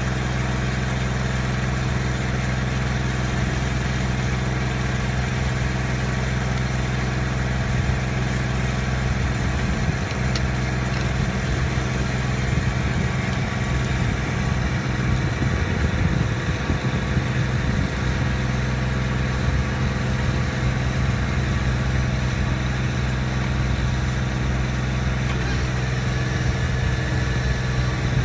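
Engine running steadily at a constant speed, driving an E.W. Wachs 3-inch de-watering trash pump.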